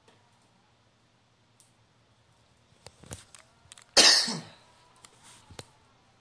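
A person coughing once, loud and close to the microphone, about four seconds in, with a few light clicks just before it and a smaller cough or throat-clearing about a second later.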